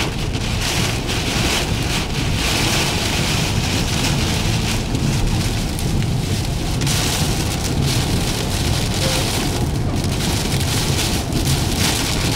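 Heavy downpour pelting the windshield and roof of a moving car, heard from inside the cabin as a loud, steady rush of rain.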